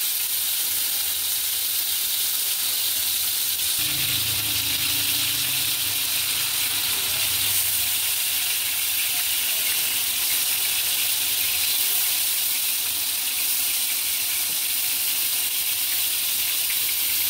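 Marinated chicken pieces sizzling in hot ghee on a flat tawa griddle, a steady frying hiss as more pieces are laid in.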